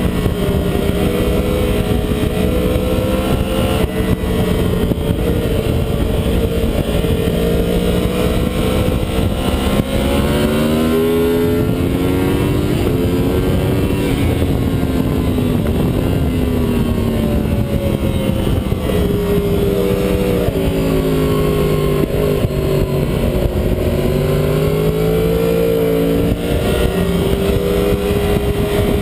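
2009 Yamaha YZF-R1's crossplane inline-four engine at track speed, heard from the bike itself, its pitch rising and falling with throttle and gear changes through the corners, over a steady rush of wind noise.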